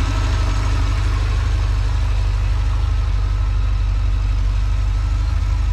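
Chevrolet Corvette C6's 6.2-litre LS3 V8 idling steadily, heard close up over the open engine bay.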